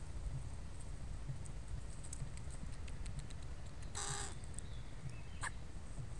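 A crow gives one short, hoarse caw about four seconds in, against faint ticking of crows' beaks picking peanuts from a hand.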